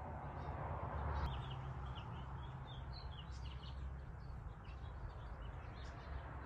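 Small birds chirping repeatedly in short high notes over a steady low outdoor rumble.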